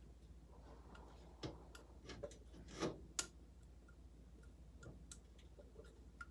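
Scattered plastic clicks and light knocks as the mounting bracket pieces of an all-in-one liquid CPU cooler are pushed and clipped into place, busiest in the middle second or two, over a faint low hum.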